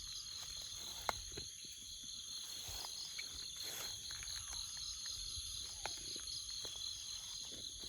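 Chorus of jungle insects keeping up a steady, high, pulsing trill in several layered pitches. Sharp clicks sound over it, the loudest about a second in and another near six seconds.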